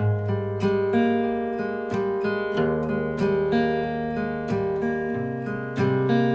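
Acoustic guitar in D A D G A E tuning with a capo at the first fret, playing an instrumental passage of picked and strummed notes that ring on into one another.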